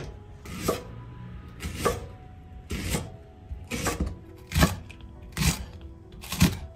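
Chef's knife slicing through a Japanese long onion (naga negi) and striking a wooden cutting board, about seven cuts at roughly one a second. Soft background music plays underneath.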